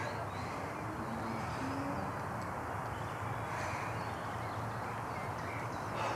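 Outdoor woodland ambience: a steady background hiss with a few faint, distant bird calls.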